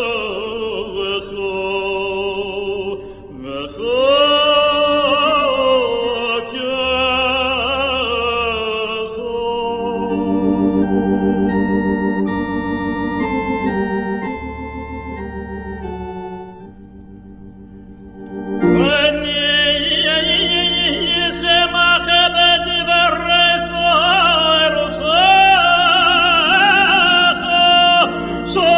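A male cantor sings a Hebrew prayer chant in a full operatic style with wide vibrato, accompanied by organ. About a third of the way in the voice stops and the organ plays alone, sustaining chords and growing softer. About two-thirds in the voice returns, loud and held over the organ.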